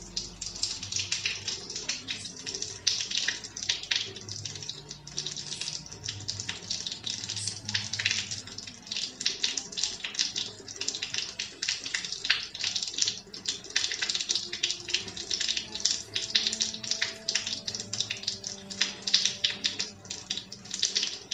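Rain falling steadily, a dense, irregular crackle of drops that goes on without a break.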